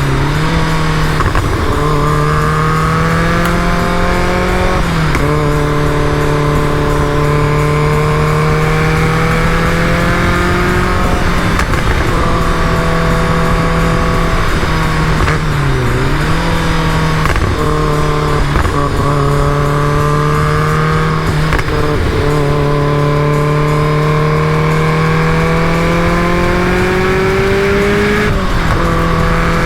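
Caterham Super Seven's engine running steadily under way, its pitch climbing slowly and dipping sharply about 5, 16 and 28 seconds in.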